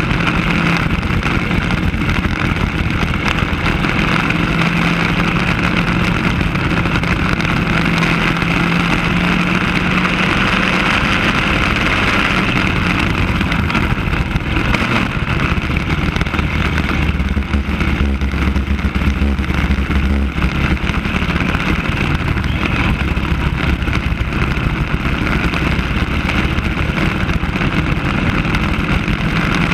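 Racing kart engine running hard at speed, heard from on board, its note shifting lower and higher as it works through the corners.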